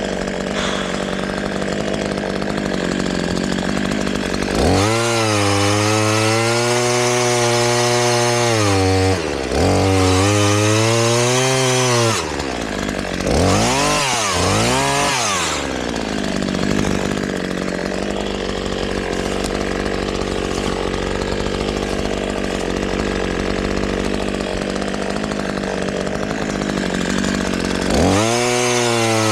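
Gas chainsaw idling, then opened to full throttle and cutting wood, its pitch sagging a little under load. It drops back briefly and cuts again, gives a few quick revs, and settles to a steady idle before revving up again near the end.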